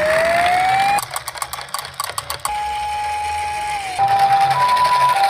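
Electronic siren of toy ambulances: a rising wail, broken by about a second and a half of clicking and rattling, then a steady tone that turns into the two-tone 'pee-po' ambulance siren alternating high and low near the end.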